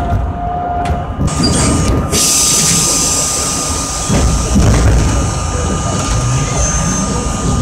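R32 subway train running through a tunnel as it pulls out of a station, heard from inside the car: a steady low rumble of wheels on rail with a constant thin hum. A hiss comes in about two seconds in.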